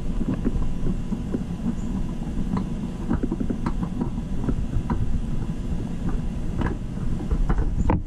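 A gloved hand working a rag inside a jet ski's engine compartment, wiping around the oil filter area: scattered light knocks and rubs over a steady low rumble.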